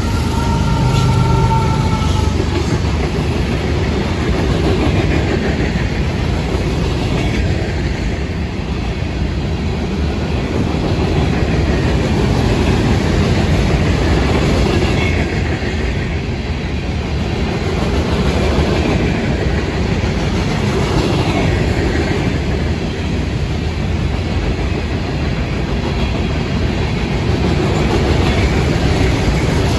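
Florida East Coast freight train rolling past at close range: a steady rumble of hopper and freight car wheels clattering over the rails. A steady engine tone from the passing trailing diesel locomotive ends about two seconds in.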